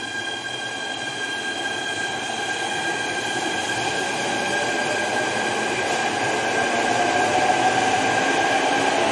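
JR East E129 series electric multiple unit accelerating away from a platform: a steady high whine with a lower tone that slowly rises in pitch, over rolling noise, growing louder as the train gathers speed.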